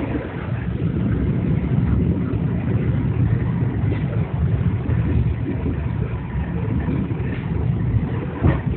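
Commuter train running: a steady low rumble, with a short knock near the end.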